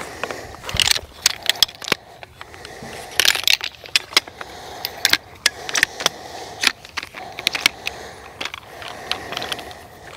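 Helinox Chair One camp chair being unpacked and assembled: irregular sharp clicks and clacks of its shock-corded aluminium frame poles, with rustling and crinkling of the packing and stuff sack.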